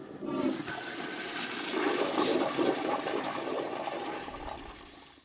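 A toilet flushing: a rush of water that builds over the first couple of seconds and then drains away, fading out near the end.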